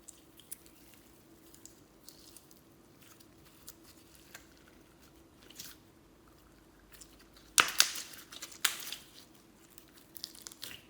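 Slime being squished and worked by hand, giving scattered small clicking pops and crackles, with two louder bursts of crackling about two thirds of the way through and another short cluster near the end.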